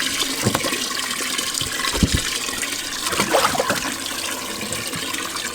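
Water sloshing and running in a boat's live well while a big smallmouth bass is handled in it, with a few knocks.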